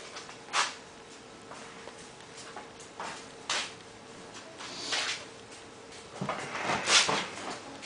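Scattered knocks, scuffs and rustles of a person moving about and picking up an acoustic guitar, the loudest bump about seven seconds in. A faint steady hum runs underneath.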